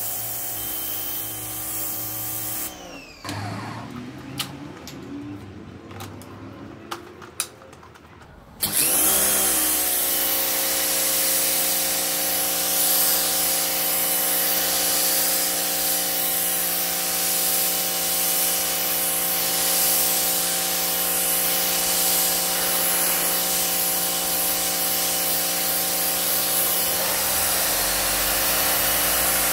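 Parkside PHD 170 D2 electric pressure washer running, its pump motor humming steadily under the hiss of the water jet hitting a marble step. About three seconds in the motor winds down and stops, leaving a few clicks. About nine seconds in it starts again abruptly and runs steadily with the jet spraying.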